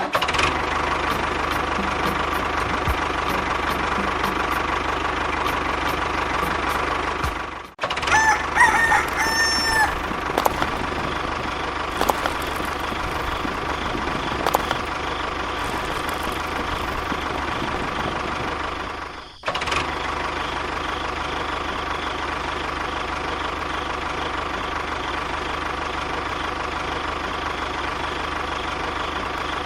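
A small motor running steadily with a constant whine. A rooster crows a little over eight seconds in. The sound breaks off abruptly twice, about eight and nineteen seconds in.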